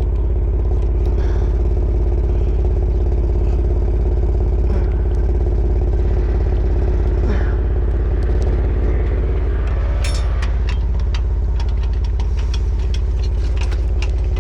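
Truck engine idling steadily. From about ten seconds in, a run of metal clicks and rattles comes on top of it.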